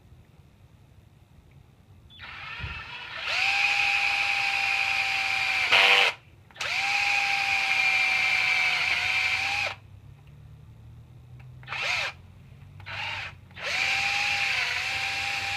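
Power drill boring a small hole through PVC pipe, its motor whining at a steady pitch. It runs in stretches: two long runs of about three seconds each, two short blips, then a third run near the end.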